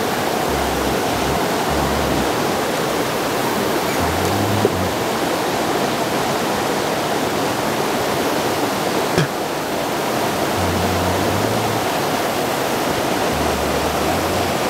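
Steady rush of water pouring over a spillway and churning through the channel below.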